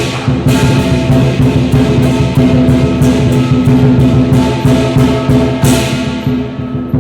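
Dragon dance percussion: a large drum beaten hard in a rapid, driving rhythm, with cymbals clashing on nearly every stroke over a steady metallic ringing.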